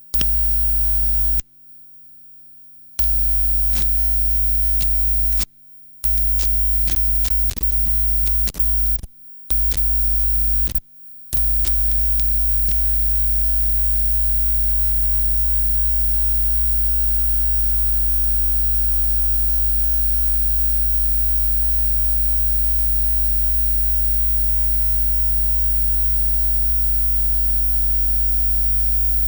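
Loud mains hum from a loose audio cable connection, cutting out abruptly to silence and back several times in the first ten seconds or so, with scattered crackles as the contact shifts. After that the hum runs steady and unbroken.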